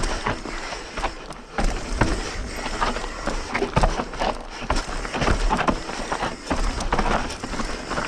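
Hardtail mountain bike riding a rough, dry trail: tyres rolling over dirt and rocks with many irregular knocks and rattles from the bike over the bumps.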